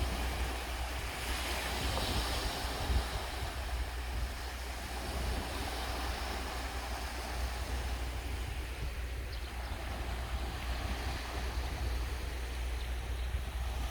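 Sea waves washing onto a sandy beach, a continuous surf hiss that swells about a second or two in. A steady low wind rumble on the microphone runs underneath.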